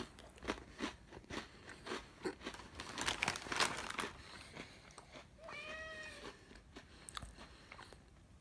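Chewing and crunching of a cookie, a run of small crunches over the first four seconds. Then a cat meows once, about five and a half seconds in.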